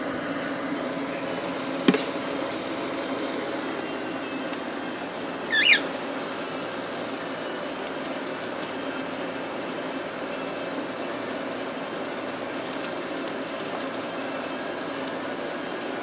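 A single short, high, wavering chirp from a cockatiel a little over five seconds in, over a steady low hum; a sharp click sounds about two seconds in.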